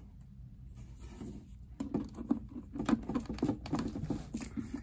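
Handling noises as a power cord's plastic plug is fitted into the AC input socket of a portable battery power station: a run of irregular small clicks, taps and rubs against the unit and its cardboard box, starting about two seconds in.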